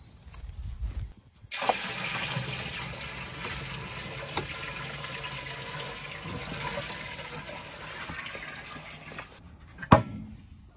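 Water poured from a plastic jug into a plastic barrel waterer: a steady splashing pour that stops shortly before the end, followed by a single sharp knock.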